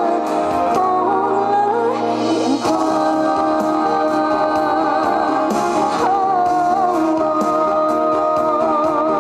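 Live pop ballad played over stadium loudspeakers: band backing with long held notes and a female singer's voice, a new section of the song starting a few seconds in.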